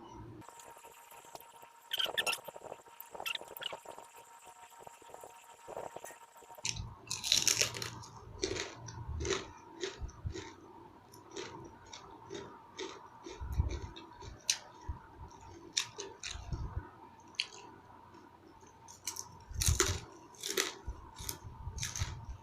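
Close-up chewing and crunching of crispy fried food, a rapid run of short crackling bites and mouth sounds.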